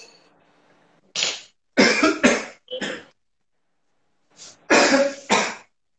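A man coughing in two fits of several harsh coughs, set off by a taste of very spicy kimchi stew.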